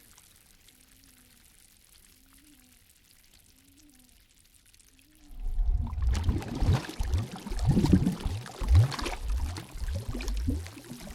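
Water sloshing and gurgling close to the microphone. It starts loudly about five seconds in after a quiet stretch and goes on in uneven surges.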